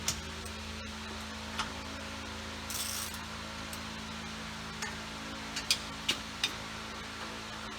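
Scattered sharp metal clinks of hand tools and hub bolts being handled, several close together near the end, with a brief rustle about three seconds in, over a steady electrical hum.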